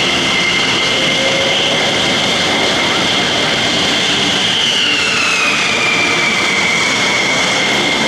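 Jet aircraft engine running, its high whine dropping in pitch about five seconds in.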